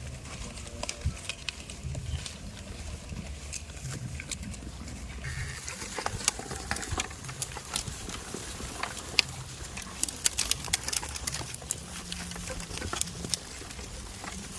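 Goats moving about, with many scattered clicks and knocks that come thicker in the second half.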